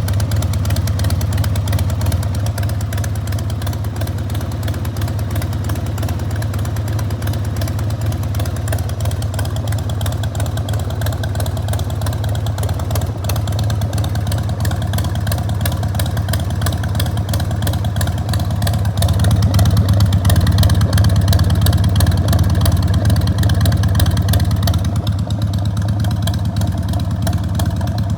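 1994 Harley-Davidson XLH1200 Sportster's air-cooled Evolution V-twin idling through Screamin' Eagle turnout silencers, a steady loping exhaust beat. About two-thirds of the way through it runs a little faster and louder for around five seconds, then settles back to idle.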